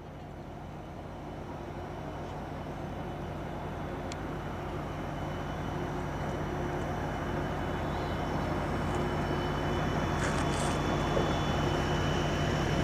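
Steady engine drone: a low hum with a thin high whine above it, growing louder throughout.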